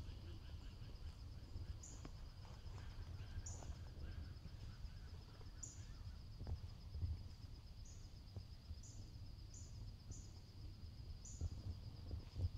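Quiet forest ambience: a steady, high, rapidly pulsing insect trill, with short high chirps recurring about once a second, over a low rumble and a few faint rustles.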